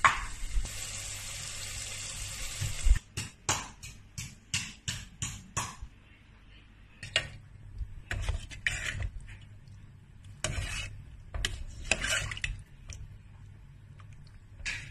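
A steady watery hiss for about three seconds, then a metal ladle knocking and clinking against a metal pot of soup as it is stirred: a quick run of knocks, then more scattered ones.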